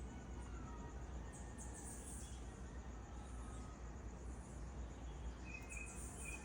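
Faint early-morning outdoor chorus: insects trilling high-pitched in short repeated bursts, with a few thin bird chirps, over a steady low hum.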